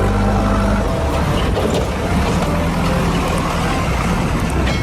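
A heavy vehicle's engine running steadily with a deep, low rumble.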